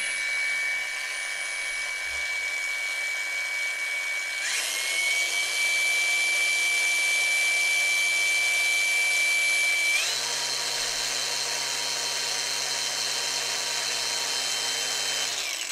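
Ingco 20V brushless cordless angle grinder running without load, a steady whine at its low setting (about 2,900 RPM), stepping up to the medium setting (about 6,000 RPM) about four seconds in and to the high setting (about 8,000 RPM, short of the claimed 9,000) about ten seconds in. Near the end the motor is switched off and the disc spins down.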